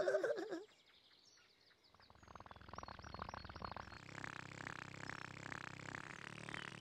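Faint birds chirping over a soft, evenly pulsing background music bed that comes in about two seconds in and grows a little louder around the four-second mark.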